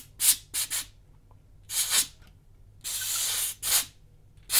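Canned compressed air blown through a straw nozzle in a series of short hissing blasts, dusting out an opened floppy drive mechanism. There are about six short blasts, with one longer one about three seconds in.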